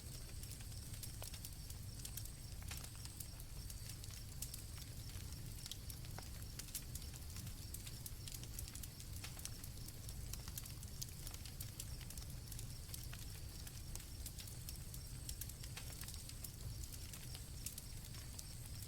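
Campfire crackling and popping with frequent sharp snaps over a low steady rumble, with night crickets trilling steadily in the background.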